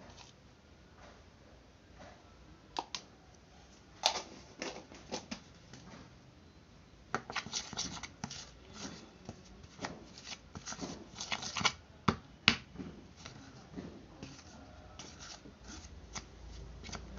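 Metal spoon stirring turmeric powder into a thick paste in a small plastic bowl: an irregular run of scrapes and clicks against the bowl, busiest in the middle, with a few sharp taps, the loudest about twelve seconds in.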